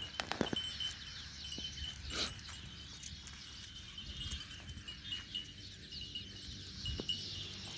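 Small birds chirping in quick high calls, with scattered light knocks and taps over a low background rumble.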